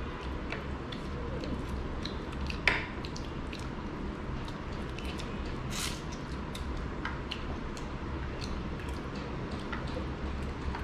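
Eating sounds from two people eating mutton curry and rice with their hands: wet squishy chewing, lip smacks and many small scattered clicks, with one sharper click about two and a half seconds in.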